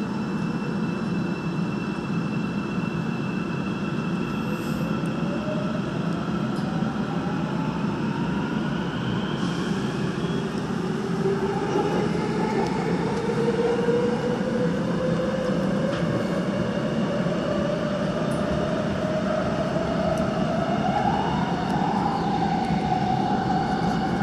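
Busan Metro Line 3 train pulling out of a station and accelerating, heard from inside the car: a steady running rumble with a motor whine that rises slowly in pitch for most of the time and levels off near the end.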